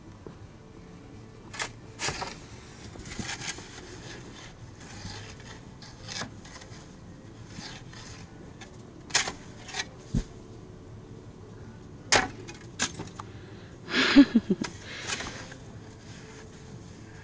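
Irregular sharp knocks and clinks of ice being broken loose on a snow-covered roof, with a denser cluster of louder knocks near the end.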